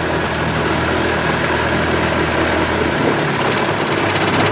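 Boat's outboard motor running steadily at low speed, with a constant hiss of water and wind. Its lowest note drops away about three seconds in.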